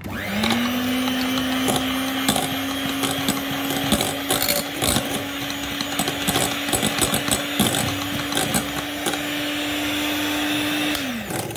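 Electric mixer whipping cream tinted with red food colour. The motor spins up just after the start, runs at a steady pitch, and winds down near the end. Frequent clicks come from the beaters knocking against the glass bowl.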